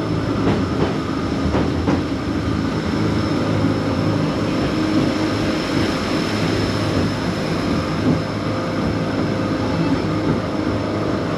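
Tokyo DisneySea Electric Railway train running on its track, heard from aboard: a steady rumble of wheels and running gear with a few light clacks in the first two seconds.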